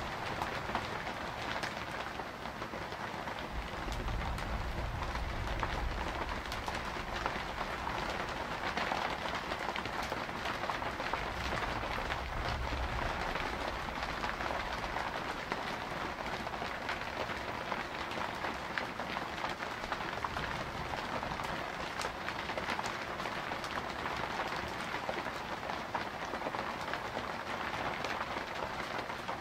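Steady rain pattering on a surface, a dense hiss flecked with individual drop ticks. A low rumble of distant thunder swells about four seconds in and again around twelve seconds.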